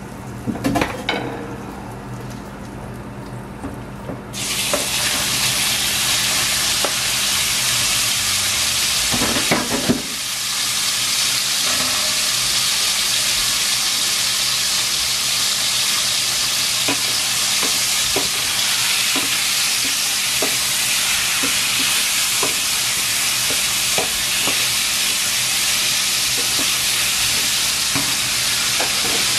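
Raw chicken breast pieces frying in hot oil in a stainless steel pan. The sizzle starts suddenly about four seconds in and runs steadily, with the wooden spoon now and then clicking and scraping against the pan as the pieces are stirred.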